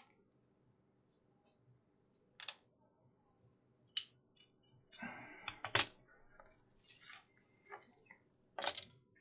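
Loose metal parts from a dismantled battery charger being handled and set down on a workbench: a scattering of sharp metallic clicks and clacks, about half a dozen, with a short rattle about five seconds in.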